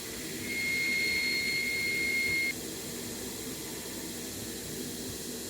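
Steady rushing roar of a gas forge burner, with a high, steady whistling tone that starts about half a second in and stops abruptly about two seconds later.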